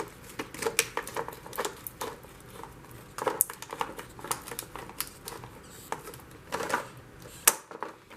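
Stiff plastic clamshell packaging being cut and pried open: a string of irregular clicks, snips and crackles of the hard plastic, with one sharp snap about seven and a half seconds in.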